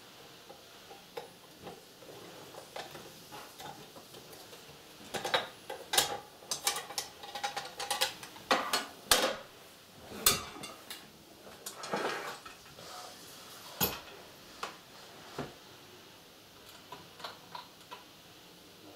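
Clatter of a sewing machine's plastic cover and small parts being handled and set down on a tabletop: scattered clicks and knocks, busiest through the middle.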